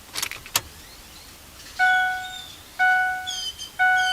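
Two clicks, then a vehicle's electronic warning chime ringing three times about a second apart, each tone fading out, as the ignition key is turned on.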